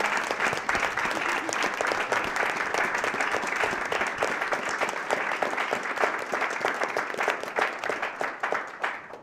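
Audience and panelists applauding: many hands clapping together, dying away near the end.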